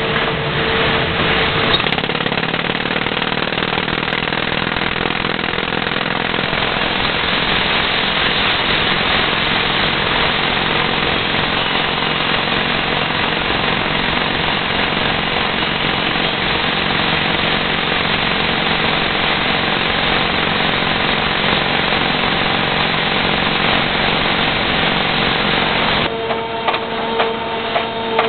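Robotic rock drill hammering steadily into rock, a dense, loud, rapid rattle. About 26 seconds in the hammering stops suddenly, leaving a steady machine hum with regular ticks.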